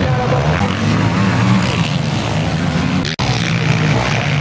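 Sport quad engines running and revving as they race on a dirt motocross track. The engine note wavers up and down, with a brief sudden dropout about three seconds in.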